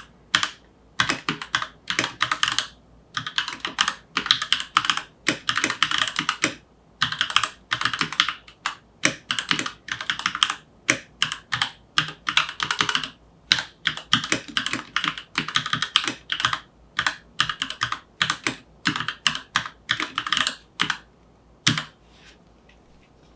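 Typing on a Keychron K8 tenkeyless mechanical keyboard with Gateron G Pro switches: rapid runs of key clicks in bursts separated by short pauses, stopping a little before the end.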